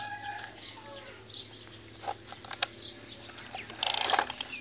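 Birds chirping and fowl clucking in the background, with sharp knocks from plastic toy trucks and a dense scraping rattle about four seconds in as they are pushed through wet mud and grit.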